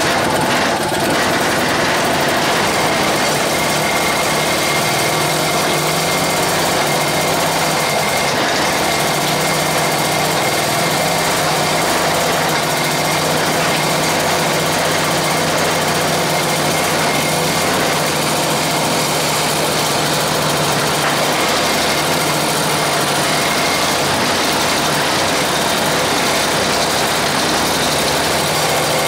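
Small single-cylinder air-cooled engine, home-built for a bicycle, running steadily on a bench stand after being hand-started. Its carburettor jets and mixture screws are not yet set.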